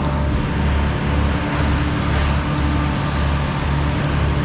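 A steady engine hum with a low throb that repeats a little under twice a second.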